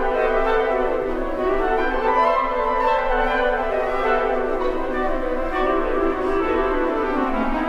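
Orchestral background music with slow, held notes.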